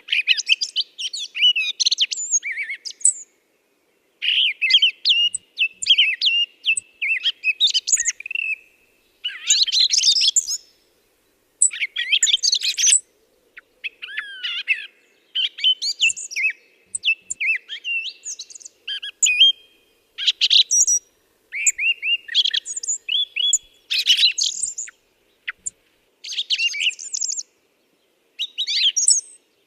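Small birds chirping and twittering in busy phrases of a second to a few seconds, with short pauses between them.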